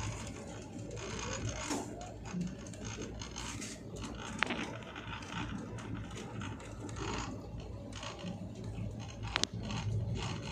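Steady running noise inside a moving vehicle crossing a bridge: a constant low rumble with scratchy rattling, and a sharp click about four seconds in and another near the end.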